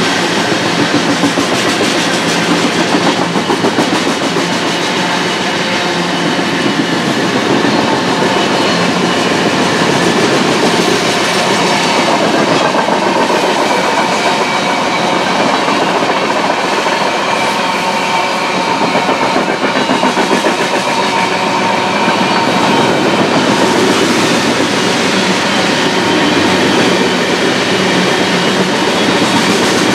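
Freight cars of a manifest train rolling past close by: a steady, loud rolling noise of steel wheels on rail, with wheels clacking over the rail joints.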